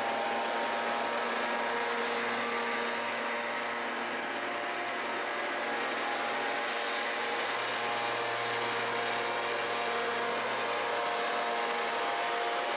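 Small engine of a motorized backpack mist-blower sprayer running steadily at an even pitch.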